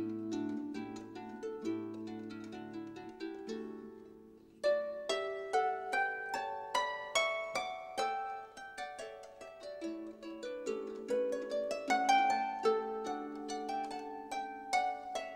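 Instrumental background music of quick plucked-string notes. The music fades down about four seconds in, then a new phrase begins abruptly.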